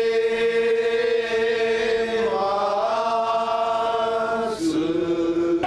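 Ritual chanting in long held vowel notes: one steady note, a step up in pitch a little past two seconds in, then a drop to a lower held note near the end.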